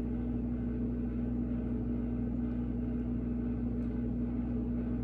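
Steady machine hum holding one even pitch, unchanging throughout.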